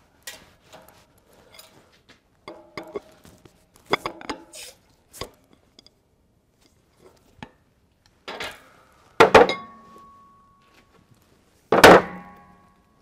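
Steel race-driver tooling clanking against a truck wheel hub in a press. There are light clinks and knocks at first, then two loud metal clanks in the last four seconds that ring on briefly.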